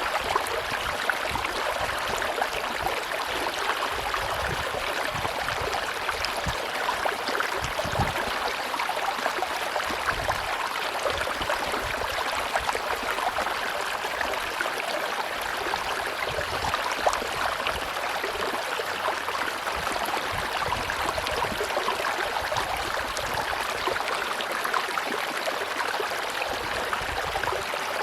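River water rushing steadily, with many small splashes and clicks.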